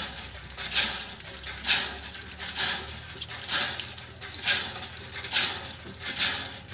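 Water gushing from a hand pump's spout in surges, about one a second, each surge coming with a stroke of the pump handle, splashing over a puppy being washed and onto the concrete below.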